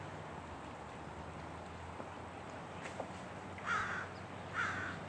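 A bird giving short harsh caws, two calls about a second apart near the end, over a steady low background hum.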